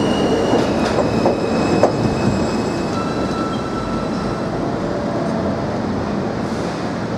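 New York subway trains on the curved elevated steel structure, with a steady rumble of wheels on rail. Thin high wheel squeals come and go, and a few sharp rail clacks fall about one and two seconds in. The rumble eases slightly toward the end.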